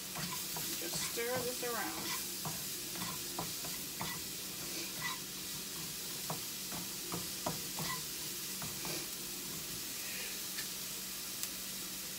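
Chopped onions sizzling in a nonstick pan, with a spatula scraping and tapping against the pan as they are stirred: a steady hiss under irregular clicks.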